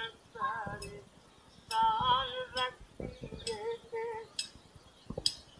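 An elderly fakir singing in short wavering phrases while keeping time by striking a steel rod against the bangle on his wrist, a sharp metallic clink about once a second.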